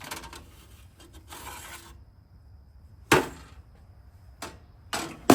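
Hot, freshly powder-coated metal parts being lifted out of a toaster oven and set down: some scraping at first, then a sharp clank about three seconds in, a couple of lighter knocks, and the loudest clank near the end.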